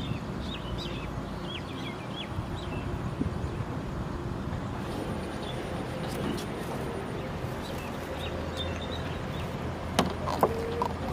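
Outdoor riverbank ambience: a steady low rumble, with small bird chirps in the first few seconds and again midway. A few sharp clicks come near the end.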